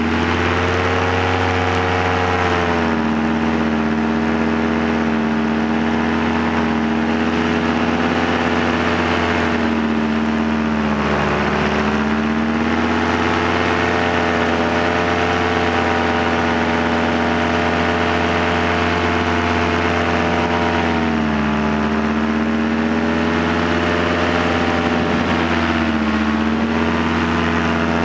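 Paramotor's Polini Thor 202 single-cylinder two-stroke engine and propeller running steadily in flight, the engine note dipping in pitch a few times as the throttle eases and picks up again.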